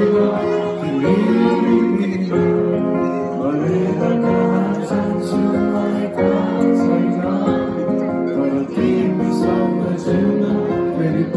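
Live band music: a singer's voice over guitars and the band, played loud and steady.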